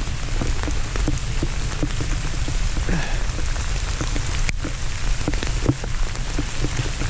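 Freezing rain falling and pattering on surfaces, with many scattered drips ticking close by over a steady low rumble.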